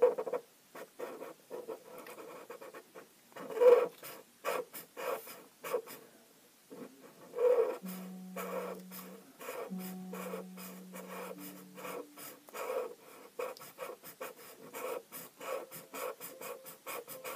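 A pen scribbling on paper, colouring in an area with quick, irregular back-and-forth scratchy strokes; a few strokes about four seconds and seven seconds in are louder.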